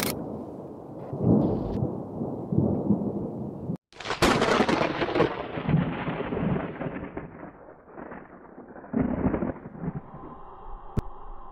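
Thunder rumbling in rolling swells. About four seconds in comes a sudden sharp crack that fades over a couple of seconds into a long rumble, and another swell follows later.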